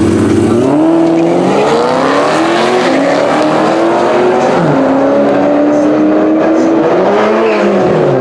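Supercharged 6.2 V8 Dodge Challenger Hellcat and Cadillac ATS launching side by side from the drag-strip line at full throttle. Their engine notes climb together and drop back at each upshift, about three times.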